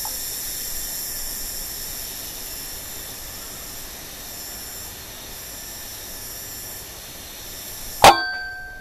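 A single sharp shot from a pre-charged pneumatic (PCP) air rifle, running without a regulator, near the end, with brief ringing after it. Before the shot there is only a steady high hiss.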